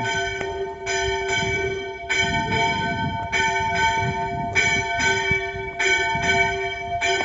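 Church bells ringing the noon hour: repeated strikes coming in pairs about every second, each tone ringing on into the next.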